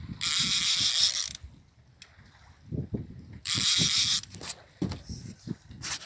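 Fishing reel ratcheting in two bursts of about a second each, with scattered soft knocks between them.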